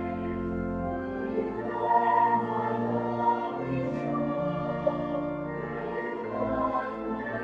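Church music with sustained chords and choir-like singing over a low bass line.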